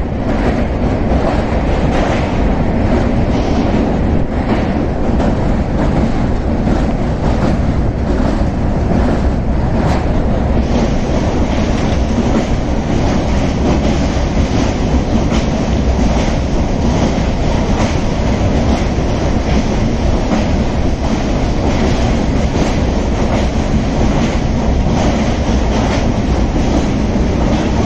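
Passenger train running over a steel girder bridge, heard from inside the coach: a loud, steady rumble with regular clicks of the wheels passing over rail joints. The hiss gets brighter about ten seconds in.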